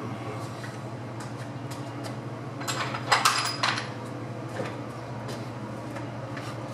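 Loose metal parts clinking together as they are handled and set down, a short cluster of sharp clinks about three seconds in, over a steady low hum.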